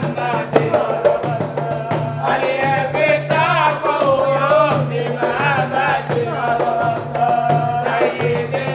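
Music: a singing voice over percussion with a steady beat and bass line.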